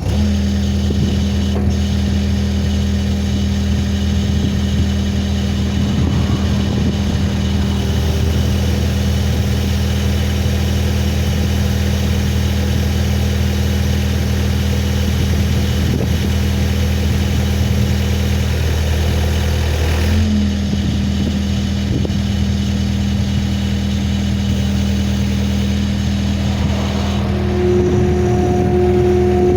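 Skid steer engine running steadily at a constant speed. Near the end a higher steady whine joins in.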